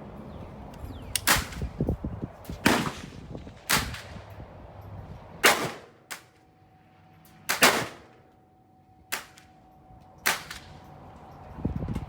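AR-15 rifle shots: about seven single shots fired one at a time at uneven intervals of one to two seconds, each a sharp crack with a short echo after it.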